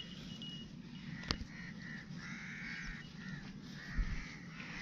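Bird calls, twice, the first about two seconds in and the second about three and a half seconds in, over a low steady outdoor background. A sharp click comes a little over a second in, and a dull thump about four seconds in.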